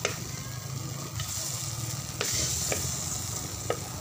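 Butter melting and sizzling in a wok while a wooden spatula stirs and scrapes it, with a few light knocks of the spatula against the pan.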